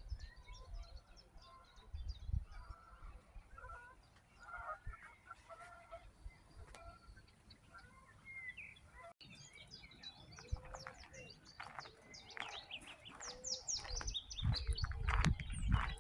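Wild birds calling and chirping, many short chirps and calls overlapping, growing busier in the second half. A low rumble comes in near the end.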